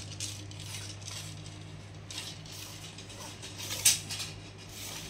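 Hands handling a carbon fishing rod: soft rustling and scraping as it is turned and rubbed, with one sharp click a little before four seconds in, over a steady low hum.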